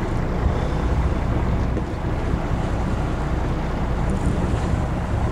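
Fishing boat under way: a steady low engine rumble mixed with wind and water noise.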